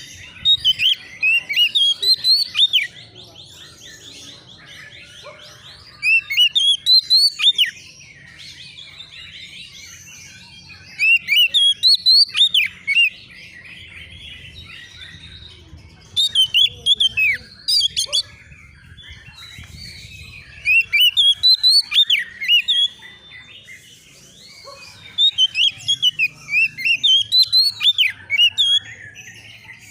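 Oriental magpie-robin (kacer) singing loud phrases of rapid whistled notes with sharp up-and-down pitch glides. The song comes in six bursts of two to three seconds each, about every four to five seconds.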